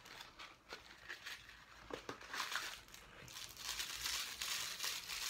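A small jewellery gift box and its packaging being handled: a few faint clicks and taps, then a soft crinkling rustle from about two seconds in as it is opened.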